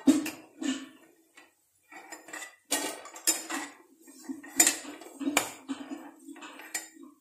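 Metal slotted spoon knocking and scraping against a nonstick kadai, about seven sharp clinks, as fried gram-flour dough pieces are scooped out of hot oil. Between the knocks the oil sizzles.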